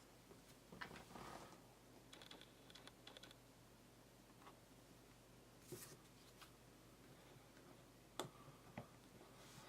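Faint, scattered small clicks and brief rustles of packaging and an item being handled, with a few sharper taps about a second in and just past eight seconds.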